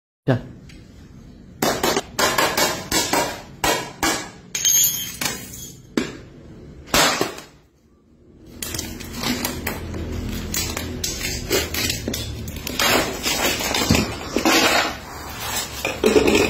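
Crockery plates being struck and broken apart on a hard floor: a series of sharp cracks and clinks of breaking plates, then after a short pause steadier scraping and crunching of shards with occasional knocks.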